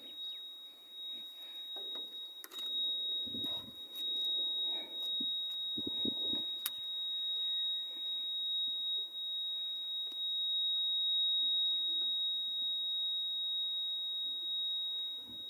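A steady, high-pitched electronic tone like a warning buzzer, holding one pitch without a break, with faint knocks and low voices underneath.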